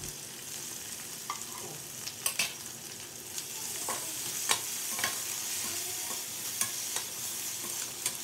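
Chillies and chopped maroi herbs sizzling in hot oil in a pan, with a spatula stirring them and clicking against the pan a dozen or so times.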